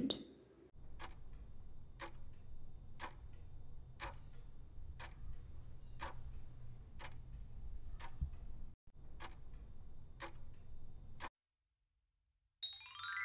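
Countdown clock ticking sound effect, a sharp tick about once a second, that stops about 11 seconds in; a quick rising chime follows near the end as the answer is revealed.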